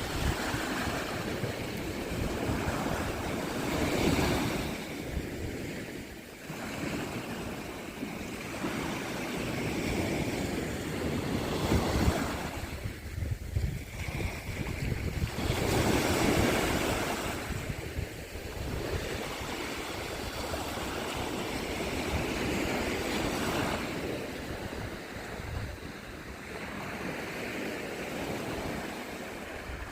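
Black Sea waves breaking on the shore, the surf swelling and falling every few seconds, with wind buffeting the microphone.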